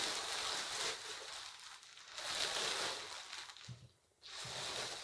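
Thin plastic bag crinkling and rustling as it is pulled off a small metal box, in three spells with short pauses between.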